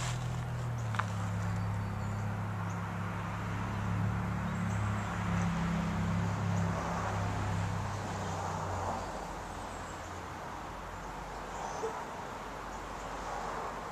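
Kubota KX121-3 mini excavator's diesel engine running with a steady low drone that steps in pitch a few times, then drops away about nine seconds in.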